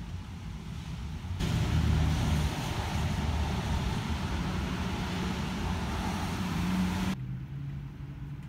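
Low ambient background rumble with a faint hum. A louder, hissier stretch of noise begins abruptly about a second and a half in and cuts off just as abruptly near the end.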